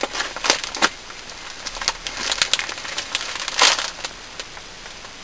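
Padded jiffy bag being cut open and handled, its paper crinkling and rustling in irregular bursts, the loudest about three and a half seconds in.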